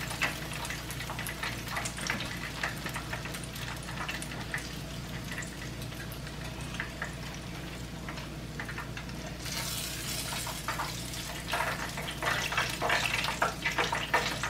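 Chicken wings frying in a skillet of hot oil: a steady sizzle with scattered pops and crackles, busier and louder in the last few seconds.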